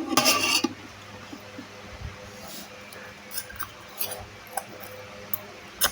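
A short scraping clatter at the start, then a few light, scattered clicks and clinks of a spoon against a dish while eating.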